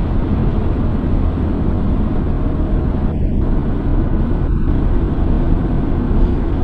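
Steady low rumble of road and engine noise from a car driving at highway speed, recorded from inside the car.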